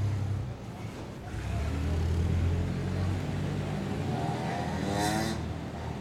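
Motor vehicle engine running with a low rumble, then revving up about four seconds in: a rising whine with a brief hiss near its peak.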